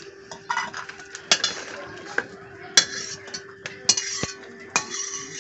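A steel ladle scrapes and clinks against a steel kadai and taps on a small steel bowl as fried cashews are scooped out of ghee. It comes as about eight sharp clinks, some followed by a short scrape.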